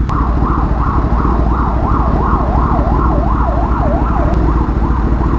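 Police siren rising and falling quickly, about two and a half sweeps a second, growing fainter near the end, over the steady low hum of idling engines in traffic.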